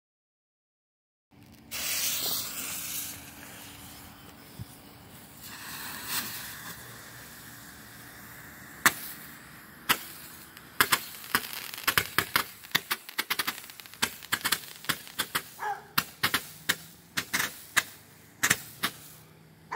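Great Grizzly Ruby Red multi-tube consumer firework going off. After about a second of silence, shots launch with a hissing rush. From about ten seconds in comes a rapid string of sharp crackling pops, several a second.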